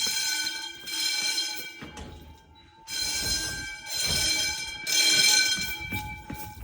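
Wheelock 10-inch fire alarm bells ringing in bursts of about a second each, with a short dip about two seconds in, during a fire drill.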